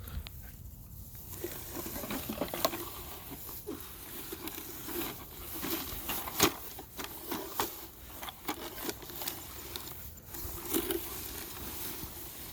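Irregular light clicks, crackles and rustling, with a few sharper clicks, as of small hard pieces being handled or shifted.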